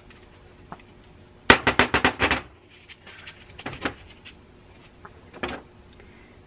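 Small metal carburetor parts and a hand tool knocking and clinking on a hard work surface: a quick run of about eight sharp knocks about a second and a half in, then a few scattered clicks and two more knocks.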